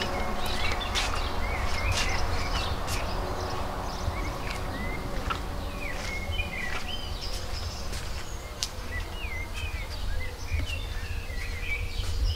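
Small birds chirping, with many short, quick calls, over a steady low rumble and a few scattered clicks.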